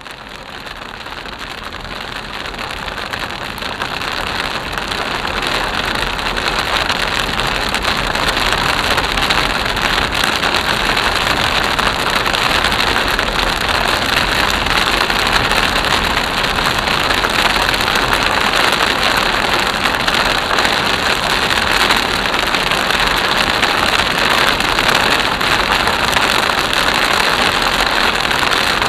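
Steady rush of rain on a car and its tyres on a wet road, heard from inside the cabin. It grows louder over the first several seconds, then holds steady.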